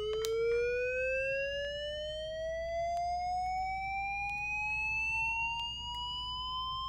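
LifePak 15 defibrillator's charging tone: a single steady tone that rises slowly in pitch while the capacitor charges to 360 joules.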